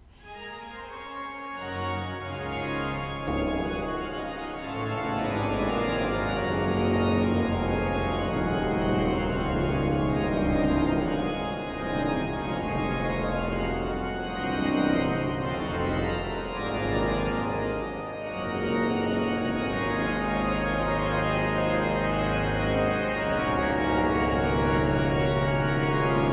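Organ playing full, sustained chords that swell in over the first couple of seconds and then hold at a steady level.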